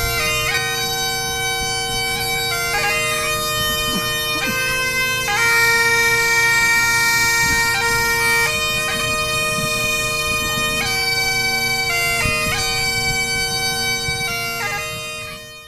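Highland bagpipes playing a tune of long held notes over a steady, unbroken drone.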